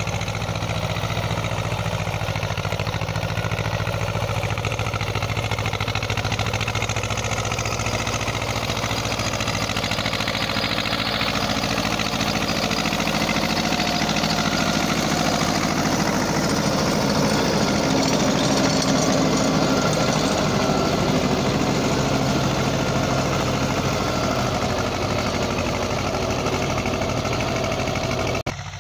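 Eicher 364 tractor's two-cylinder air-cooled diesel engine running steadily under load, pulling a rotavator that is tilling the soil.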